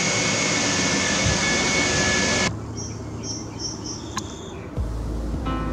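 Steady rushing air noise with a faint high whine, from a fan or blower, cuts off abruptly about two and a half seconds in. A quieter open-air background follows, with a few short high chirps and a low rumble setting in near the end.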